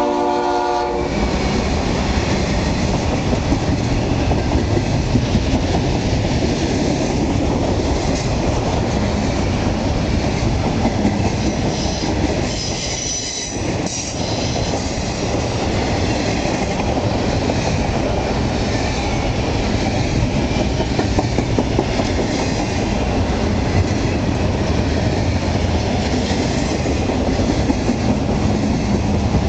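Norfolk Southern double-stack intermodal freight train passing close by: a steady rumble of steel wheels on rail from the container well cars, with many light clicks. A locomotive horn note ends about a second in.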